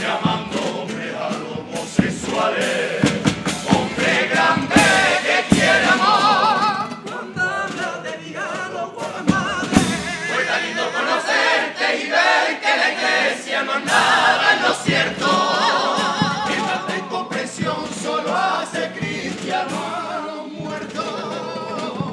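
Carnival comparsa, a male chorus, singing in harmony to strummed acoustic guitars.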